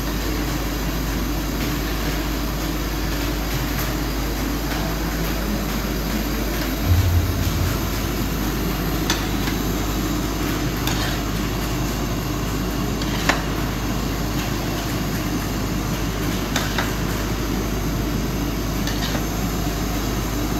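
A long metal paddle stirring grated carrots in a large steel karahi: scattered scrapes and knocks of the paddle against the pan over a steady low rumble, with one heavier thump about seven seconds in.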